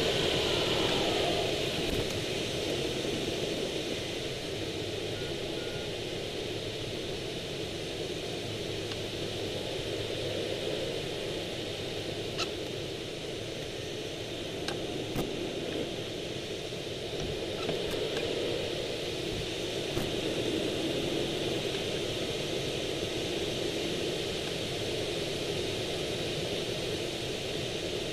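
Steady rush of airflow around an unpowered Swift rigid-wing hang glider in flight, a windy hiss that swells and eases slightly, with a few faint clicks.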